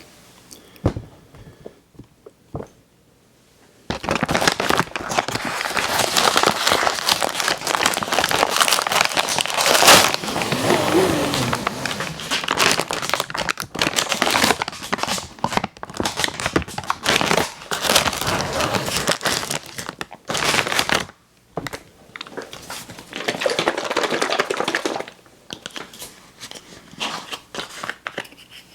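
Plastic cookie packaging crinkling and tearing as it is handled and opened. A few sharp clicks, then dense crinkling starting about four seconds in that breaks off around twenty-one seconds, with another burst a little later and scattered rustles near the end.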